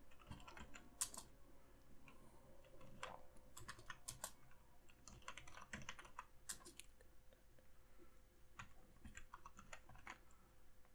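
Faint typing on a computer keyboard: irregular keystrokes in short bursts with pauses between.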